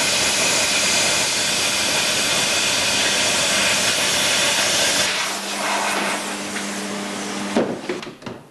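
MIG welding on car body steel: the arc gives a loud, steady crackling hiss for about five seconds, then stops. A steady low hum follows, and near the end comes a sharp click and a few knocks.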